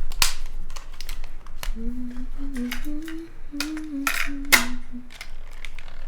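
Sharp clicks and taps of small hard parts being handled, with a person humming a short wandering tune for a few seconds in the middle.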